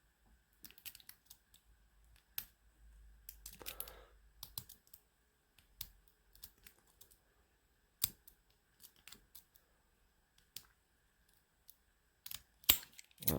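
Lock pick and tension wrench working the pins of a Master Lock padlock with a universal-pin core: light, irregular metallic ticks and clicks as the pins are set one at a time. A louder snap near the end as the shackle pops open.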